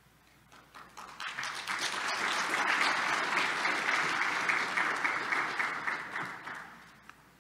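Audience applauding: a few scattered claps build within a second or two into full applause, which holds for a few seconds and then dies away near the end.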